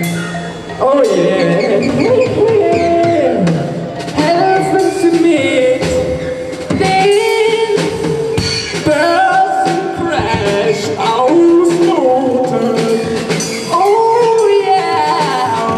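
Live band playing a schlager song: a male lead vocal over drum kit, guitar and keyboard.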